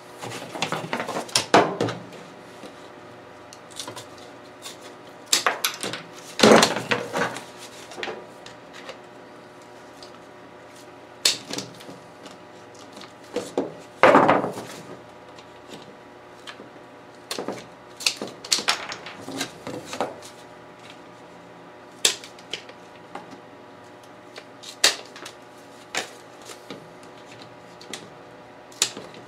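Pliers clicking and knocking against the sheet-aluminium radiator scoop and radiator in irregular, scattered strokes, the loudest about a third and halfway through.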